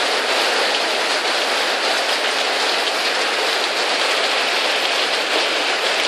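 Steady rain falling on surfaces, an even hiss that neither builds nor fades.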